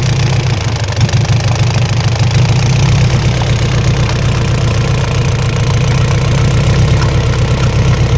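Isuzu 4BC2 four-cylinder diesel engine running at idle with a steady, rhythmic knocking. The knock, first thought to be inside the engine, comes from inside the injection pump.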